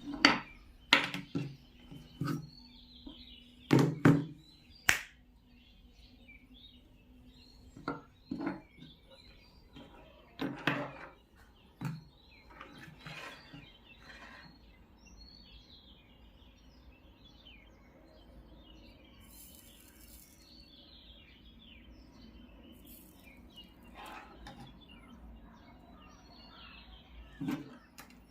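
Scattered sharp knocks and thuds, bunched in the first half with one more near the end, over birds chirping throughout.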